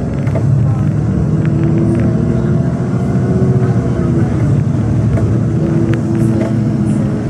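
NefAZ 5299 city bus heard from inside, under way: a steady engine drone and low road rumble, with a few faint clicks and rattles.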